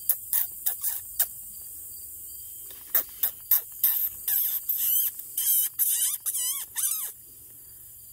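Lucky Duck electronic predator caller playing a prey-distress sound to draw in coyotes. A quick run of short sharp squeals comes in the first second, then a pause. From about three seconds in come loud, warbling squeals that waver up and down in pitch, and they stop about a second before the end.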